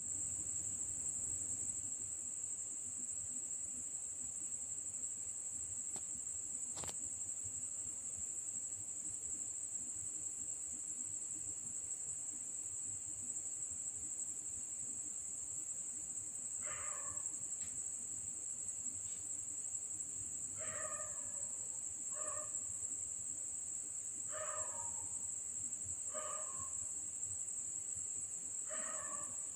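Crickets or similar insects trilling in a steady, unbroken high-pitched drone. From a little past halfway, a bird calls over it: short calls that fall in pitch, repeated every second or two.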